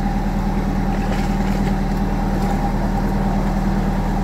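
Narrowboat engine running steadily with a fast, even beat.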